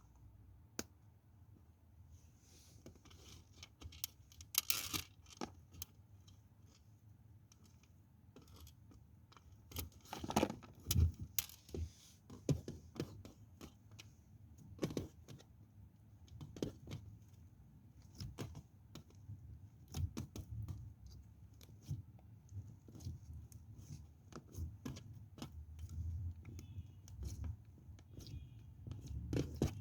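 Bar soap being cut with a knife, giving irregular crisp crunches and crackles as the blade breaks through the dry soap, with louder clusters about four seconds and ten seconds in.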